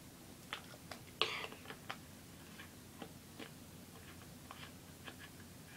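Faint scattered clicks and crinkles of a plastic water bottle being drunk from and handled, with one short breathy sound about a second in.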